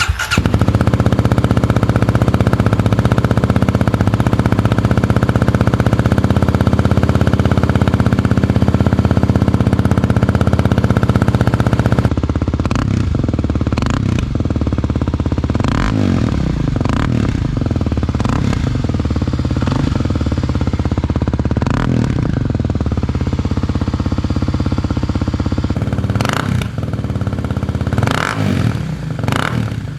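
Kawasaki KLX300's single-cylinder four-stroke engine through a Yoshimura RS-2 slip-on exhaust. It runs steadily at a raised speed for about twelve seconds, then drops to idle with a series of quick throttle blips.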